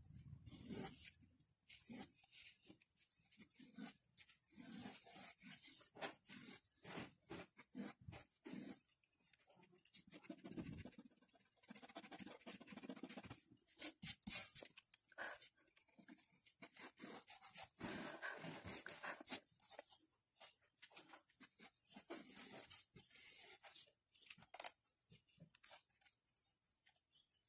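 Pencil sketching on paper: short, irregular scratchy strokes, with a few sharper, louder ticks.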